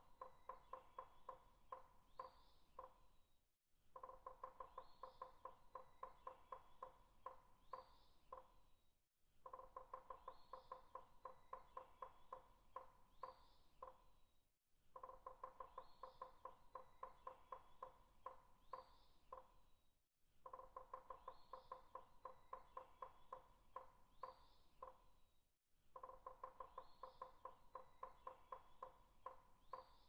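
Faint looped track of bird chirps over a rapid pulsing, music-like tone. The same few-second pattern repeats about every five and a half seconds, with a brief gap at each join.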